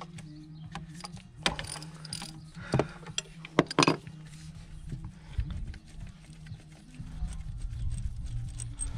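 Metallic clicking and handling knocks as the leak-down tester's adapter is unscrewed from a cylinder of a Ford Transit 2.4 TDCi diesel engine, with a few sharper knocks in the first four seconds, over a steady low hum.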